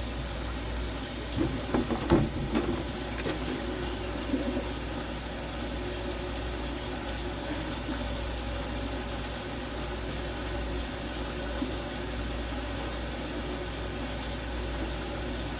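Kitchen tap running steadily with hot water. A few knocks about two seconds in.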